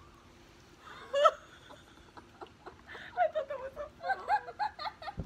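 Young women laughing and giggling in short broken bursts through the second half, after one short loud vocal outburst about a second in.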